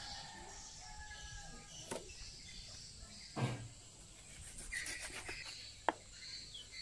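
Raw meat being handled and cut with a knife on a wooden chopping board: scattered soft knocks, a dull thump about halfway through and a sharp click a little before the end.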